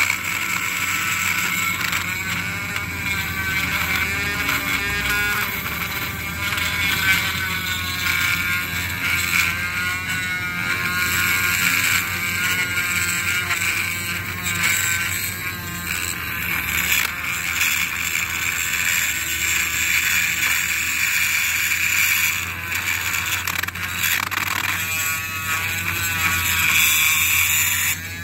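Handheld rotary tool running with a cutting bit, routing a lip around a cavity in a cedar slab. A steady high whine whose pitch wavers up and down at times as the bit cuts into the wood.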